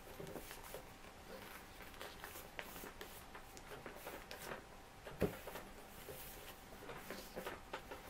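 A sheet of printer paper being folded and creased by hand: faint scattered rustles and scrapes as fingers press and run along the fold, with one louder tap about five seconds in.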